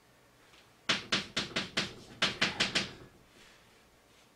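Chalk writing on a blackboard: about ten quick, sharp taps and strokes as a kanji character is written, starting about a second in.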